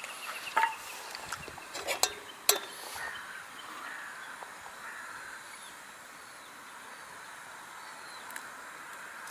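A few sharp clinks in the first three seconds, the loudest about two and a half seconds in, then steady outdoor background with faint bird chirps.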